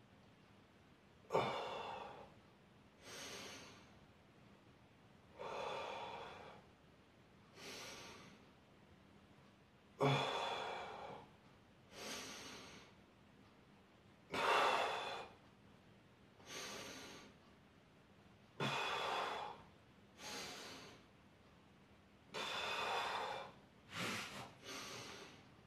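A man breathing hard with the effort of dumbbell shoulder presses: about a dozen heavy breaths, one every two seconds or so, each lasting about a second.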